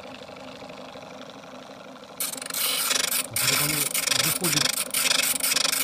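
A drill bit being sharpened in a Sturm BG6017S electric drill sharpener: the steel bit grinding against the abrasive stone, a harsh rasping grind that starts suddenly about two seconds in and pulses as the bit is turned in its guide hole.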